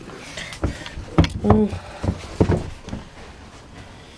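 A series of knocks and thumps from handling, with a short pitched sound about a second and a half in.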